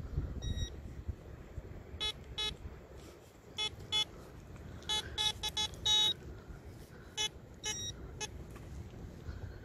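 Metal detector giving a string of short, same-pitched beeps at irregular intervals, one a little longer about six seconds in, as soil is dug out of a target hole. Low scraping and rustling of soil and gloves underneath.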